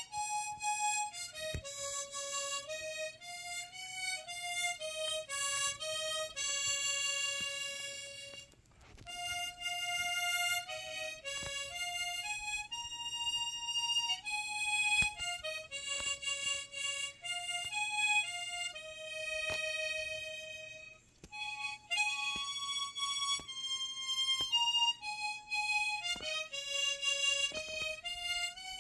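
Harmonica played solo, a simple stepwise melody in three phrases with short breaks between them, somewhat clumsy amateur playing.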